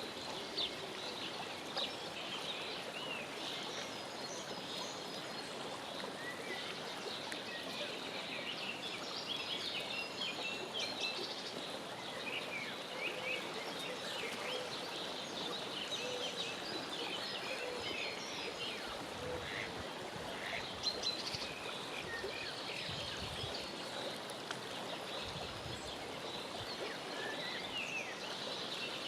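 Mallard ducklings peeping: many short, high calls overlapping throughout, over a steady wash of running water or outdoor noise.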